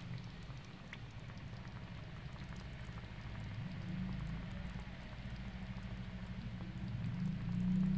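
Food sizzling in a hot cooking pan, a steady frying hiss with many small scattered crackles, over a low steady hum.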